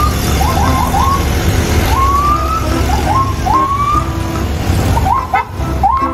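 Electronic police-car siren sound: short rising whoops repeated over and over, some in quick pairs, over a steady low engine-like rumble.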